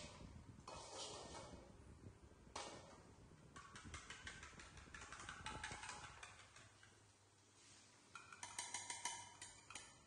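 Spoon scraping and tapping against a small bowl held over a wok, with a quick run of sharp taps near the end as the last of the beaten egg is knocked out.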